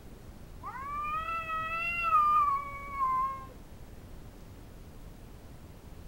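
Calico house cat giving one long, drawn-out territorial yowl at an intruding cat. It starts about half a second in, rises, then slides slowly down before fading out after about three seconds.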